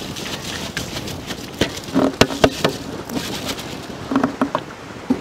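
Soaked basmati rice pouring from an aluminium bowl into boiling masala gravy in a large aluminium pot, a fine pattering hiss, followed by a few sharp knocks in two clusters, about 2 s and 4 s in.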